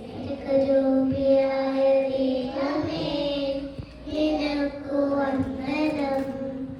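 Young children singing a prayer song, in long held notes.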